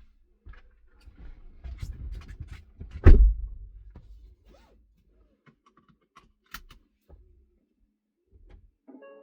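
Creaks, rattles and knocks from a 2025 Hyundai Ioniq 5's tailgate and boot, the unwanted noise the owner is trying to catch. There is one loud thump about three seconds in, a sharp click a few seconds later and a short tone at the very end.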